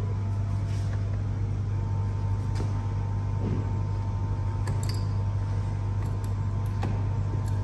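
Steady low machine hum, with a few faint light clicks from metal fittings being handled.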